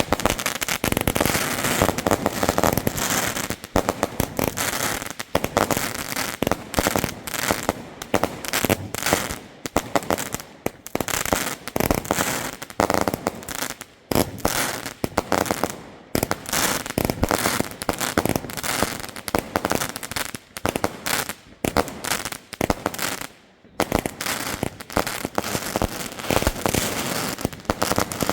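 Fireworks going off in a dense, rapid run of bangs and crackling, with a few brief lulls.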